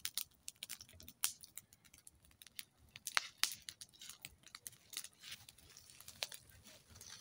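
Irregular sharp crackles and snaps of dry leaves and twigs: footsteps through crisp fallen leaves, then a small fire of dry twigs crackling as it burns.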